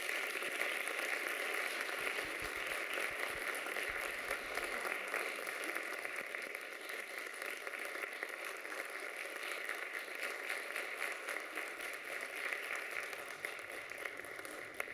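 Audience applauding steadily, easing off slowly toward the end.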